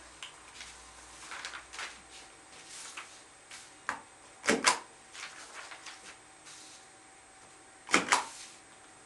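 A self-inking rubber stamp pressed down hard onto papers on a desk, twice, each press a sharp double clack of the stamp's spring mechanism going down and coming back up. Paper sheets rustle and shift between the presses.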